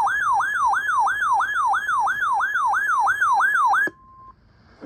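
Electronic yelp siren tone, a rising sweep repeated about three times a second, cut off abruptly near the end, followed by a brief steady beep.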